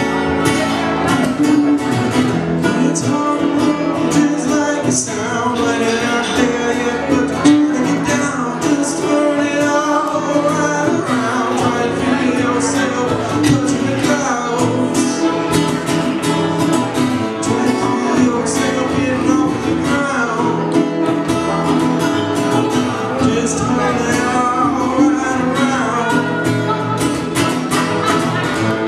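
Live acoustic band music: harmonica played into a handheld microphone over a strummed acoustic guitar and a plucked upright bass.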